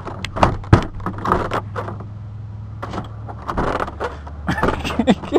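A car's interior door handle is pulled again and again, giving a run of irregular clicks and rattles while the door stays shut: it will not open from inside. A steady low hum from the car runs underneath.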